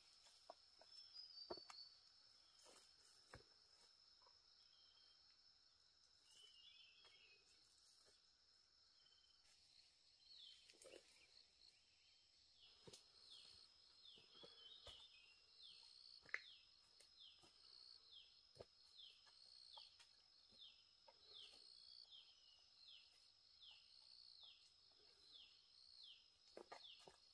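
Faint forest ambience: a steady high-pitched insect drone, and from about halfway a short falling call repeated over and over, about one and a half times a second. Scattered light clicks and snaps come and go.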